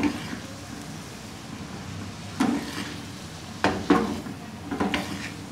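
Boneless chicken pieces sizzling in oil in a frying pan while a spatula stirs them, with a few sharp knocks and scrapes of the spatula against the pan in the second half.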